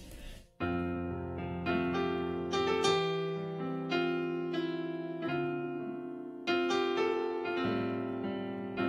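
Piano playing slow sustained chords, starting suddenly about half a second in, with a new chord roughly every second.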